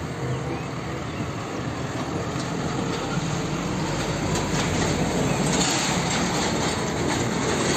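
A car-carrier truck with a Hino cab driving past in road traffic: a steady rush of engine and tyre noise that grows slightly louder.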